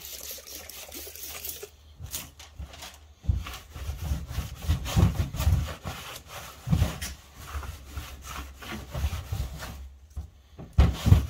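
A cloth rubbed back and forth across a workbench top in irregular wiping strokes, with a few dull bumps as the hand presses on the bench.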